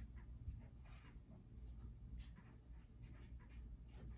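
Near silence: faint scratchy rustles and light taps over a low steady hum.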